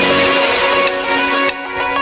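Background music: a guitar-backed track that thins out about a second and a half in, as it moves into a bass-heavy electronic section.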